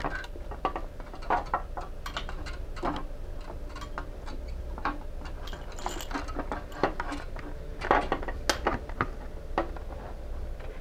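Handling noise of a cable being pulled through a trolling motor's grommet hole and coiled cord: irregular light clicks, taps and rustling of plastic and rubber parts.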